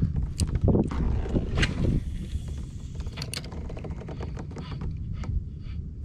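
Low wind rumble on the microphone with scattered knocks and clicks of gear handling on a kayak. From about four seconds in, a light, regular ticking.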